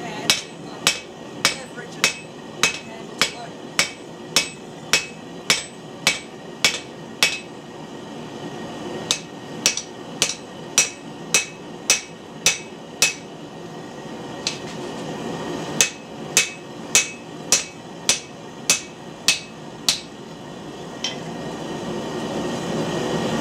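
Hand hammer striking red-hot medium-high carbon steel on an anvil, forging an ax eye drift blank: sharp ringing blows at about two a second, in three runs with short pauses. A rushing noise swells near the end.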